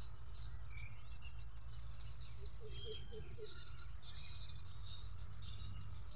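Birds and insects calling: many short, varied high chirps and twitters, with a quick run of four low notes about halfway through, over a steady low rumble.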